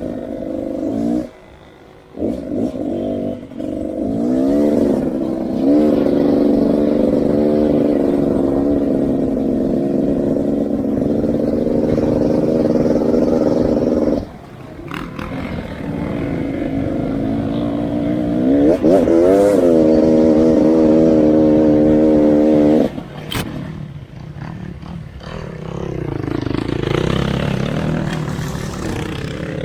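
Off-road motorcycle engine under way: the engine note climbs in pitch through the gears a few seconds in and again past the middle, holds steady between, and drops away sharply twice as the throttle closes. Near the end it runs quieter and rougher.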